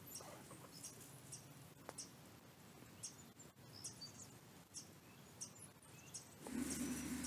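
Faint, short, high-pitched bird chirps, repeated irregularly about once or twice a second over a low steady background. A little before the end, a louder steady low hum with hiss comes in.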